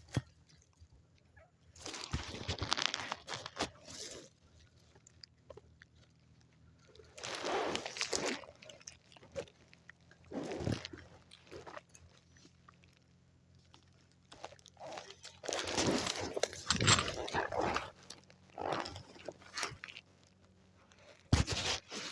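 Dry leaves and brush crunching and rustling in irregular bursts, a second or two at a time, with quiet pauses between: someone moving through forest undergrowth. The longest, loudest stretch comes past the middle.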